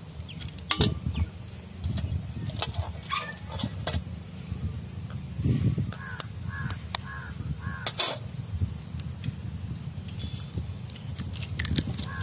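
Raw eggs being cracked with a knife and their shells pulled apart over an aluminium pot: sharp taps and shell crackles every few seconds. A bird calls in quick runs of four or five short calls, about halfway through and again near the end.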